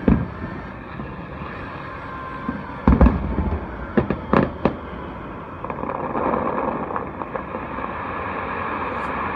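Distant aerial firework shells bursting: a bang right at the start, a cluster of booms and cracks about three to five seconds in, then steadier noise from about six seconds in.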